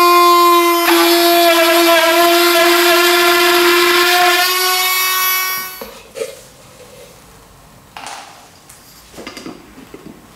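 Pen-sized electric mini drill whining steadily at high pitch as it bores through a plastic container's base; the pitch dips slightly about a second in as the bit bites, and the motor stops at about six seconds. A few light knocks and handling sounds follow.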